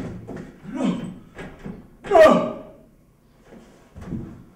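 A man's strained cries and grunts as he crawls along the floor, the loudest a cry about two seconds in that falls in pitch. Near the end comes a clack as he pulls at the handle of a closed metal-handled double door.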